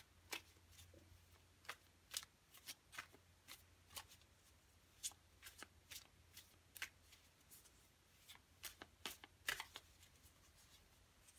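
Tarot cards being shuffled off to the side: a faint, irregular scatter of light card snaps and clicks. A low steady hum runs underneath.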